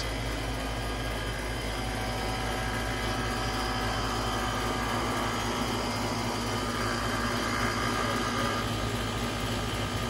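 Outdoor air-conditioning condensing units running: a steady mechanical hum with several constant motor tones.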